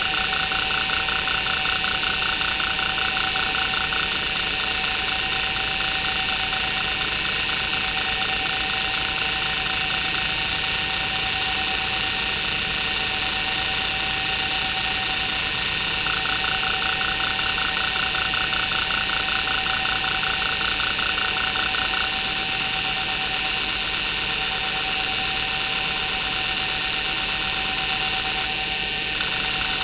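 Maxtor 8051A 41 MB hard drive seeking continuously under a head-movement test: a rapid, even stream of head clicks over a steady whine from the spindle, whose bearings are noisy. The clicking changes rhythm as the seek pattern changes, and drops out briefly near the end.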